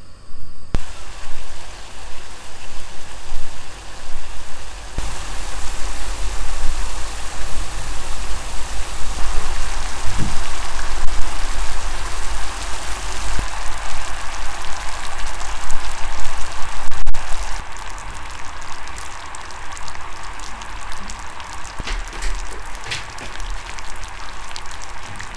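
Sugar-and-water syrup in a nonstick frying pan coming to the boil: a bubbling hiss that builds about five seconds in and keeps going, over a steady low rumble.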